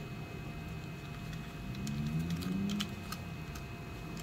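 Light clicks and taps of plastic and wire being handled: a small 3D-printed RC car chassis turned over in the hands while the receiver antenna wire is routed underneath.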